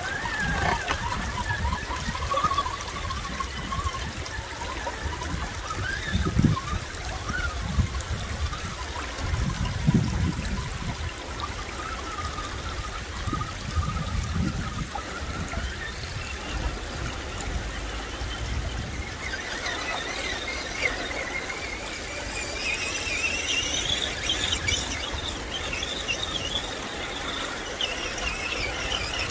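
Electric RC rock crawler's motor and drivetrain whining, the pitch wandering up and down with the throttle and climbing higher in the second half, over running stream water, with a couple of low bumps about six and ten seconds in.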